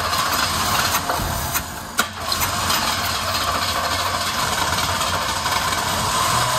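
A carbureted V8 in a pickup that has sat for years is cranked over on the starter with starting fluid sprayed into the carburetor, over the hiss of the aerosol. It does not catch, which the crew puts down to no fuel getting to the engine. There is a short break in the cranking about two seconds in, ending in a sharp click.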